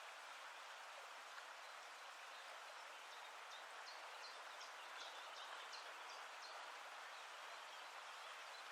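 Faint, steady rush of flowing water, as of a stream or small waterfall. About halfway through, a quick run of short high chirps sounds over it.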